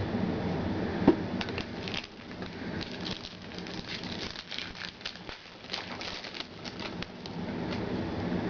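Trading cards and their pack wrapper being handled: a single knock about a second in, then a run of light crinkles and clicks over a low room hum.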